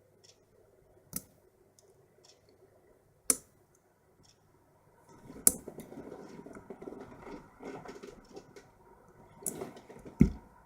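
Lock pick and tension tool working inside a padlock's keyway: a few isolated sharp clicks, then from about halfway a busy run of scratching and small clicks, with a dull knock near the end.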